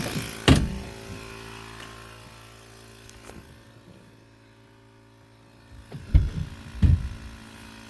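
Cordless battery-powered tire inflator running with a steady hum that fades away as it slows down: its battery is running flat. A few sharp handling knocks, about half a second in and again around six and seven seconds.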